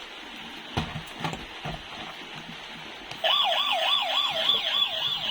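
A few faint clicks of handling, then about three seconds in a toy vehicle's electronic siren switches on: a loud, fast wail rising and falling about four times a second.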